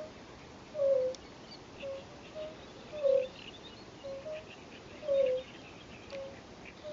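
European fire-bellied toads calling from a pond: short, low, slightly falling notes from several toads, the loudest coming about every two seconds with fainter answering notes in between. Faint high chirps sit in the background.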